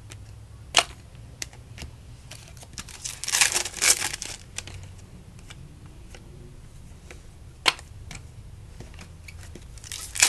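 Handling of 2009 SP Authentic baseball card packs and cards: the foil pack wrapper crinkling and tearing for a second or so around the middle and again at the end, with small ticks of cards being shuffled and two sharp clicks, one about a second in and one near eight seconds.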